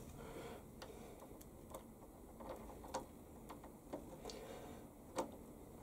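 Faint, irregular light metallic clicks of a small ball bearing on its spindle being handled and screwed into a steel tool-holder block by hand, with one slightly louder click a little after five seconds in.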